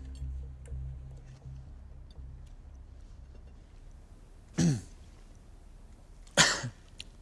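A man gives two short throat-clearing coughs about two seconds apart, the second louder, as chilli heat catches in his throat. Before them, low background music tails off.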